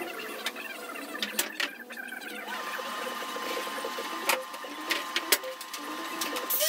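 A steady hum with a few sharp clicks and knocks as MIG welding gear is handled.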